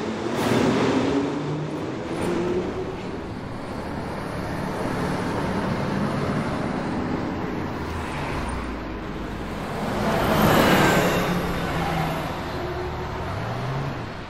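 Road traffic: a steady hum of cars on a city street, with a vehicle passing close by about ten seconds in, the loudest moment.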